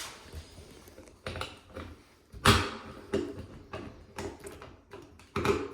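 Door knob hardware being worked into place by hand: a run of irregular metal clicks and knocks, the loudest about two and a half seconds in, as a tight screw is fitted.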